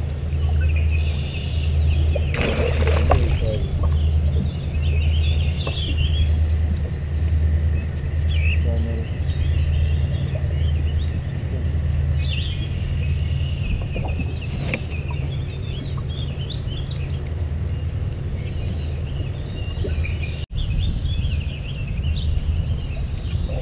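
Birds calling and chirping in the trees around the water, with one louder, longer call about two to three seconds in, over a steady low hum that pulses about once a second for the first half.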